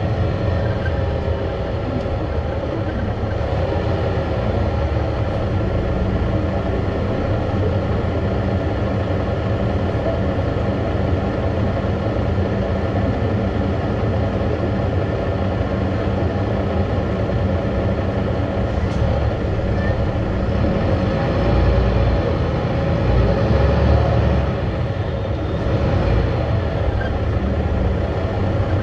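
City bus driving, heard from inside the passenger cabin: a steady low engine and drivetrain rumble with a faint whine, tyre and road noise, and cabin rattles, swelling briefly about three quarters of the way through.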